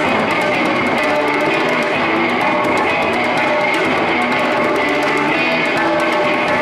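Live music of electric guitar with a hand drum beaten by bare hands, in a dense run of quick drum strokes.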